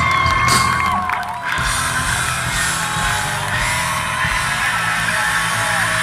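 Live rock band playing the song between sung lines, with electric guitar, and the crowd whooping and cheering over it.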